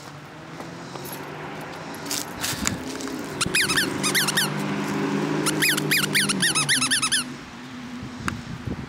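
Squeaky toy ball squeezed over and over in two quick runs of squeaks, each squeak rising and falling in pitch. A low steady motor hum runs underneath.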